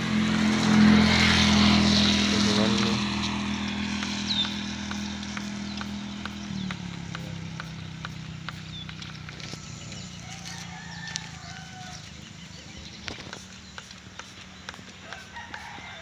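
A rooster crowing over the steady hum of an engine running, which cuts off about six and a half seconds in; a few small bird chirps follow.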